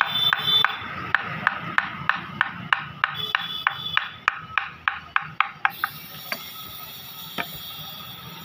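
Wooden mallet striking a carving chisel as it cuts into a wooden panel, sharp knocks about three a second. The knocks stop about two-thirds of the way through, with a few scattered taps after.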